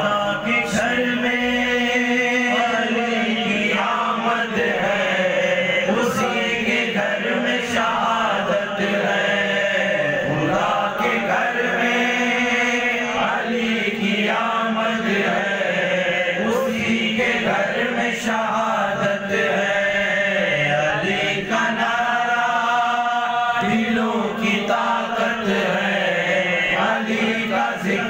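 Men singing a manqabat, Urdu devotional verse in praise of Ali, into microphones: a lead voice draws out long melodic lines over a steady low held note.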